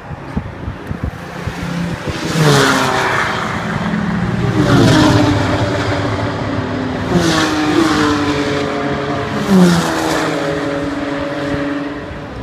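Race cars passing one after another at speed, about four in turn, each engine note dropping in pitch as it goes by.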